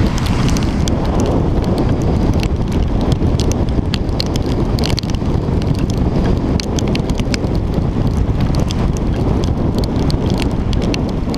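Heavy wind rumble on a GoPro's microphone from riding at speed in rain, with many sharp ticks of raindrops striking the camera housing.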